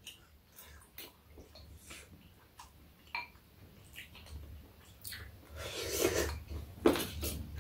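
Quiet eating at a table: spoons and chopsticks clicking faintly against ceramic bowls, with chewing and a louder stretch of noise about six seconds in.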